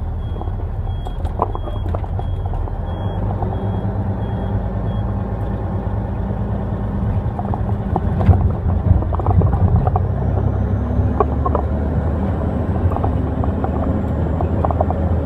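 Truck engine and road noise heard from inside the cab while driving. A high electronic chime repeats about twice a second and stops about five seconds in, and a single bump sounds about eight seconds in.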